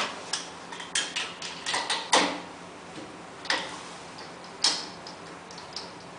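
Sharp metallic clicks and clanks of the outlet valve and hose fittings on a milk tanker trailer being handled: a quick cluster in the first two seconds, then single knocks about three and a half and four and a half seconds in.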